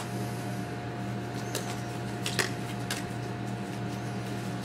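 Disposable protective gloves being pulled onto the hands, with faint rustling and a few short snaps of the glove material, over a steady background hum.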